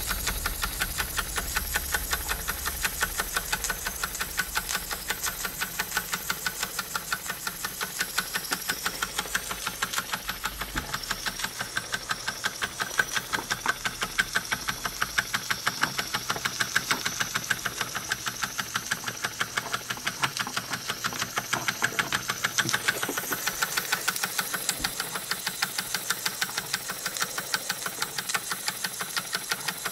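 Small Wilesco toy steam engine running steadily: a fast, even beat of steam exhaust with a constant hiss.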